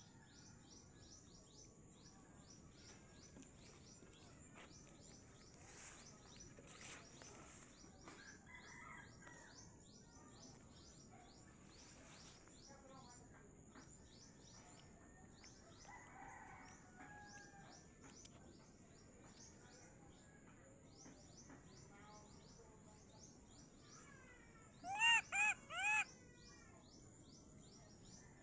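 Quiet outdoor ambience: a steady high whine under rapid high chirps, about two or three short falling notes a second. About 25 seconds in come four loud arched calls in quick succession.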